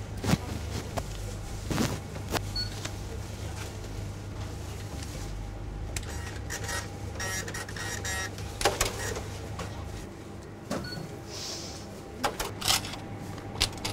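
Supermarket checkout till at work: a receipt printer chatters rapidly for about a second and a half midway, among scattered sharp clicks and knocks of handling at the till, over a steady low hum.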